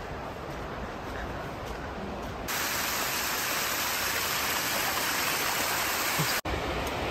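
Small waterfall splashing down a rock face: a steady hiss of falling water that starts suddenly about two and a half seconds in and cuts off abruptly near the end. Before and after it, only a faint low rumble.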